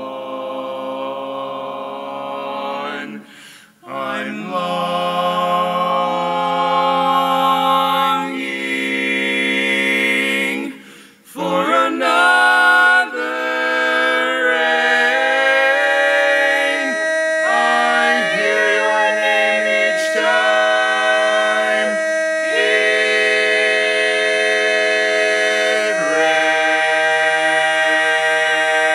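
Barbershop quartet singing a cappella in four-part close harmony: long sustained chords with short breaks between phrases. Through the second half one long final chord is held, with a high note ringing above it.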